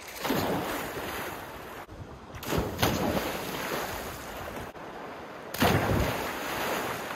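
People jumping into a river pool: three big splashes about two and a half seconds apart, each trailing off into churning, rushing water.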